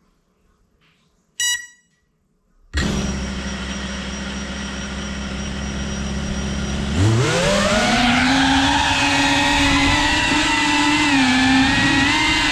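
FPV racing quadcopter's brushless motors and propellers: a short beep, then the motors spin up suddenly to a steady idle hum. About seven seconds in, the throttle goes up and the pitch rises quickly into a loud, wavering propeller whine as the drone lifts off and flies.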